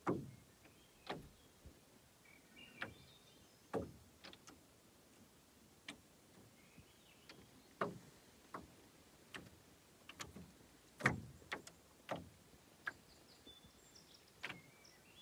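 Light, irregular hollow knocks against an aluminium-looking canoe hull, about a dozen scattered through, the loudest about eleven seconds in.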